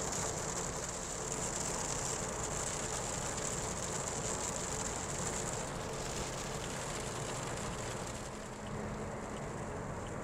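Steady road and engine noise heard from inside a car's cabin at highway speed, with a high hiss that fades about six seconds in.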